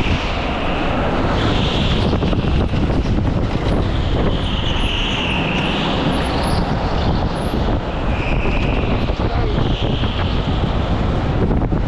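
Go-kart driving at speed, heard from the onboard camera: the kart's motor running steadily with wind buffeting the microphone.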